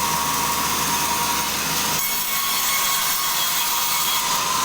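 Sawmill saw cutting through a log, a steady unbroken noise with a slight change in tone about two seconds in.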